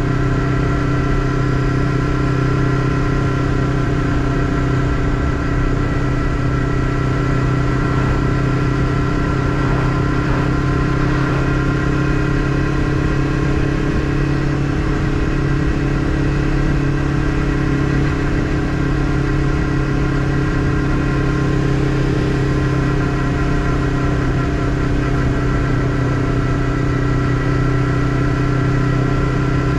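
Honda CBF500 motorcycle's parallel-twin engine running at a steady cruising speed, heard from the rider's seat, its pitch holding even.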